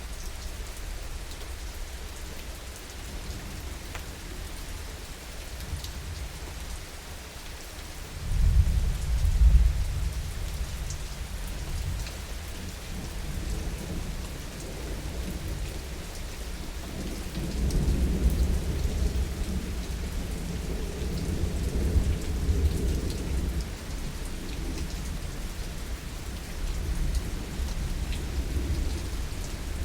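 Steady heavy rain with thunder. A loud rumble of thunder breaks about eight seconds in, a longer rumble follows about halfway through, and a weaker one comes near the end.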